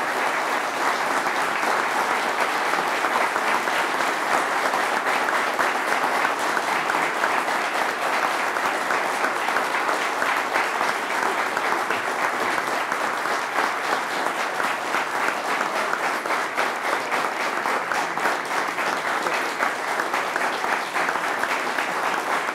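A room full of people applauding: a long, steady round of dense hand-clapping that keeps going without a break.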